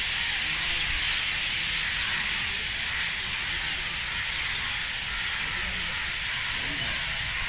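Steady outdoor night ambience: an even high-pitched hiss over a low rumble, with no distinct events.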